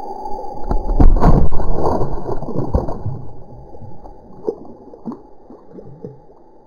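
Water splashing and gurgling at the pond's edge, loudest about a second in, then tapering off into a few small drips and plops.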